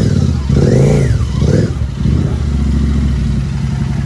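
Royal Enfield Continental GT 650's 648 cc parallel-twin engine running, revved briefly twice in the first two seconds, then settling to a steady low drone.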